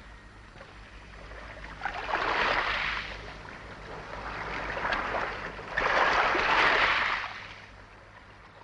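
Sea waves washing in and drawing back, the rushing noise swelling and fading in three surges a couple of seconds apart, over a faint steady low hum.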